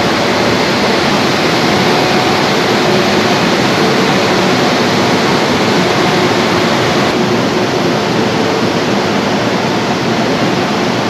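WAG-9 electric locomotive's cooling blowers running: a loud, steady rushing noise with a faint hum in it.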